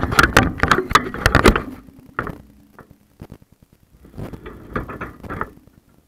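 Dishwasher wash water from the spray arm striking and splashing over a camera's waterproof case: two bursts of rapid knocking and clatter, the first loud and the second, about four seconds in, weaker, with a low hum in between.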